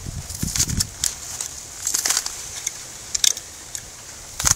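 A blade cutting through the cardboard end cap and pleated paper of a Baldwin P-174 canister oil filter element. It makes a series of short, irregular crackling scrapes, with the sharpest one near the end.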